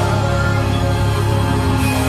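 Live worship band music between sung lines: steady held chords over a sustained low bass.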